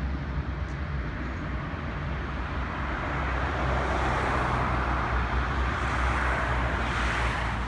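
Road traffic with a steady low rumble. A car passes close by on the road, its tyre noise and engine swelling over the second half and easing off near the end.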